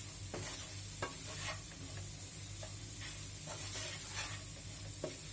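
Spatula stirring browned onions frying in hot oil in a pan: a steady sizzle with a scrape or tap of the spatula about once a second.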